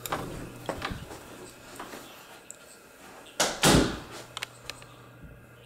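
Interior panel door being handled and opened: sharp clicks of the knob and latch in the first second, then a loud double bump about three and a half seconds in, followed by a few lighter clicks.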